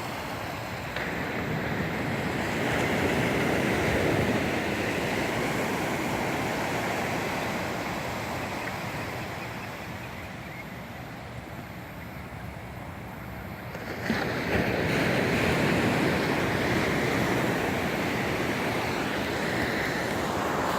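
Ocean waves: surf swells in and slowly dies away, then a second wave surges in abruptly about two-thirds of the way through.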